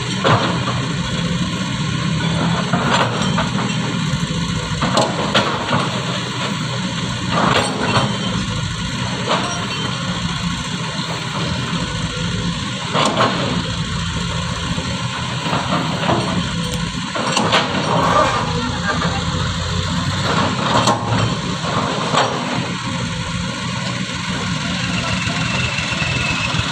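Kobelco excavator's diesel engine running steadily, with a dozen or so sharp knocks and clanks at irregular intervals and a faint rising whine near the end.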